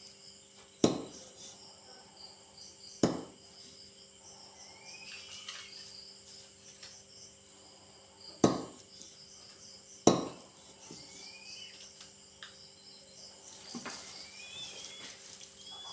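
Four sharp knocks, a few seconds apart, over crickets chirping steadily; short rising chirping calls come in the middle and again near the end.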